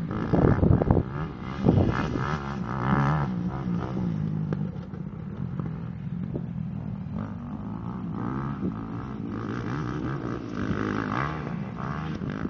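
Motocross dirt bike engine revving up and down as it is ridden around a dirt track, its pitch rising and falling with the throttle. It is loudest in the first couple of seconds.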